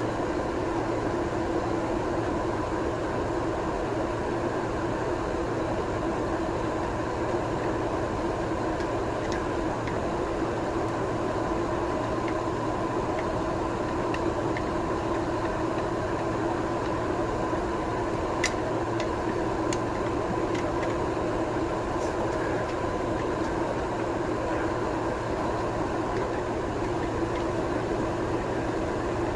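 Steady mechanical hum with a few fixed tones, unchanging throughout. A few faint light clicks come about two-thirds of the way in.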